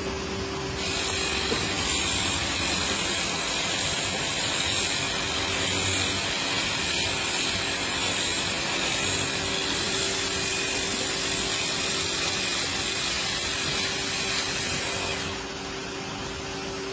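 A steady machine-like hiss over a low hum, switching on about a second in and stopping near the end.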